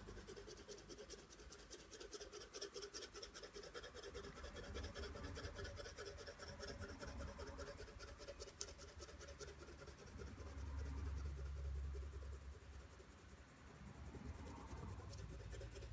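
Graphite pencil shading on drawing paper: quick back-and-forth hatching strokes make a faint, steady scratching as tone is laid down over the white areas of the drawing.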